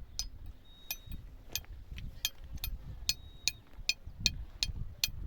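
A hammer striking repeatedly, about a dozen sharp ringing metallic taps at two to three a second, unevenly spaced.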